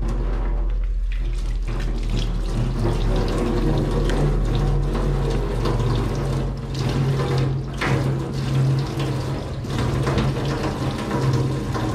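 Kitchen tap running steadily into a sink while dishes are washed, with a couple of brief clinks of dishes partway through.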